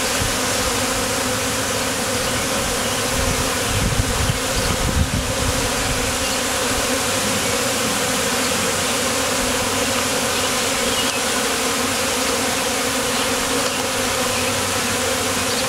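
A captured swarm of honeybees buzzing in a dense, steady hum as the mass of bees walks into a new hive's entrance, with a few low bumps about four to five seconds in.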